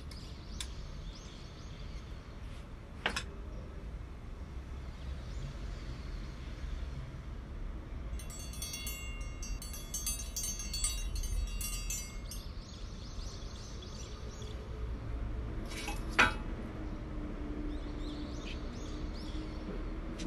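Quiet room ambience with a low steady rumble and small birds chirping outside; a chime rings for a few seconds in the middle. Two sharp clicks, the louder one near the three-quarter mark.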